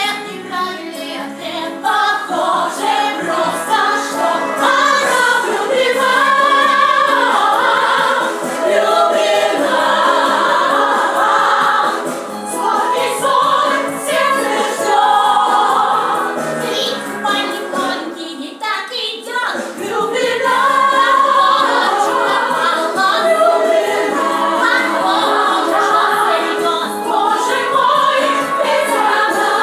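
Group of voices singing a song from a stage musical in chorus.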